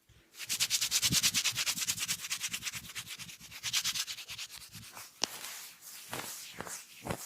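Massage hands rubbing rapidly back and forth, a swishing friction at roughly ten strokes a second. It is loudest over the first few seconds, then goes on softer, with a sharp click about five seconds in.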